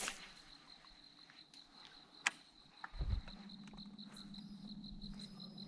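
A few sharp knocks, then about three seconds in a low thump and a steady low hum from the boat's electric trolling motor starting up. A faint, evenly pulsing high tone sounds throughout.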